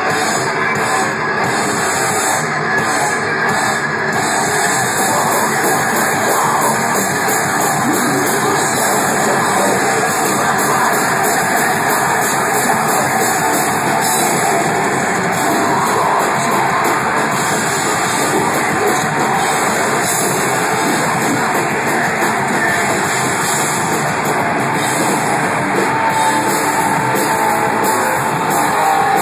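Heavy metal band playing live at a steady loud level: electric guitars and a drum kit, with screamed vocals.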